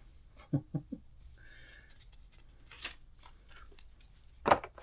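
Paper instruction leaflet being handled: a few short rustles and crackles, the loudest near the end.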